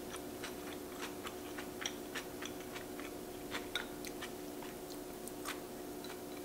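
A person chewing a mouthful of rice with the mouth closed: faint, irregular small clicks, two or three a second, over a steady low hum.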